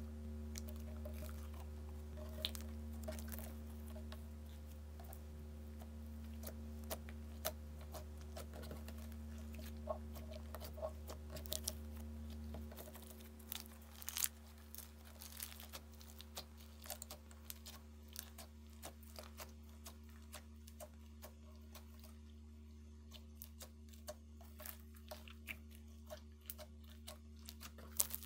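Hands squishing and kneading thick slime mixed with foam beads, making many small wet clicks and pops. A steady low hum runs underneath and gets quieter about halfway through.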